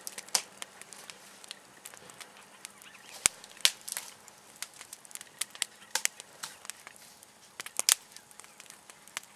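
Small wood campfire crackling, with irregular sharp pops and snaps; the loudest come about three seconds in and again near the end.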